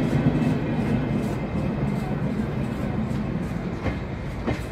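Passenger coaches of a departing train rolling on the rails, the low rumble fading as the last coach pulls away. There are two sharp clicks near the end.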